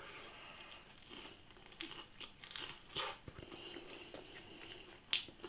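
Someone biting into and chewing a breadcrumbed Findus Crispy Pancake: faint, scattered crunches and crackles of the crispy coating, with a sharper crunch about three seconds in and another near the end.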